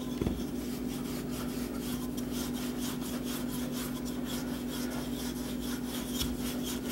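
Wooden rolling pin rolling over floured puff pastry dough on a wooden board, a soft repeated rubbing with one light knock near the start, over a steady low hum.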